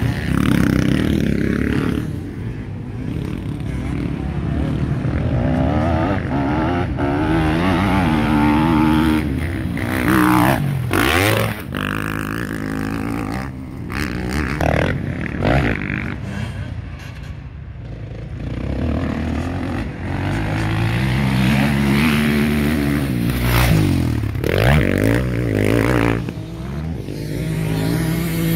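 Several motocross dirt bikes riding the track, their engines revving up and down so the pitch keeps rising and falling with throttle and gear changes. Twice, about 11 seconds in and again near 24 seconds, a bike passes close with a sharp sweep in pitch.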